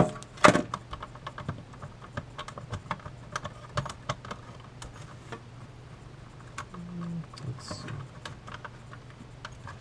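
Hands handling a clock radio's plastic housing and its wiring: two sharp plastic knocks at the start, then many small, light clicks and taps as parts and wires are fiddled with.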